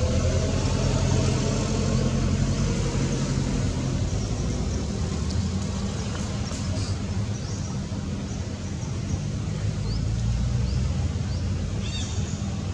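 An engine running steadily with a low hum, joined near the end by a few faint high chirps.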